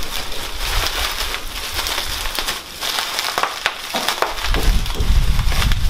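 Plastic bubble wrap crinkling and crackling as it is handled and pulled off wrapped pieces of rock, with a low rumble coming in near the end.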